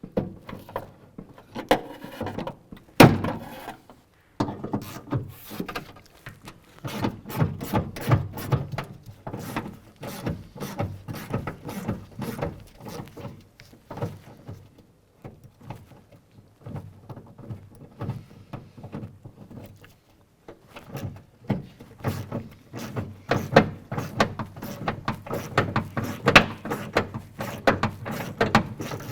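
Hand work on a car door's exterior handle and latch inside the door shell: a long irregular run of clicks, taps and knocks from tools and metal and plastic parts. There is one loud knock about three seconds in, and the clicks come thicker near the end.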